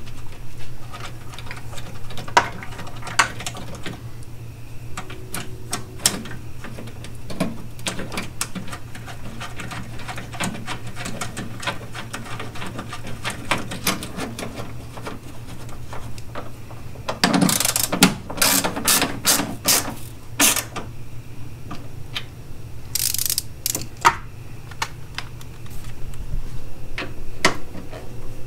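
Metal clicking and ratcheting as fender bolts are fitted and tightened, with short bursts of a cordless battery-powered ratchet running about two-thirds of the way through and again a few seconds later. A steady low hum lies underneath.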